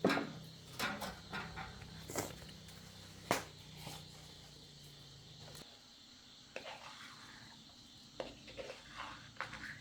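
Scattered light knocks and clicks, several in the first half and sparser later, over a steady high insect drone. A low hum underneath stops a little past halfway.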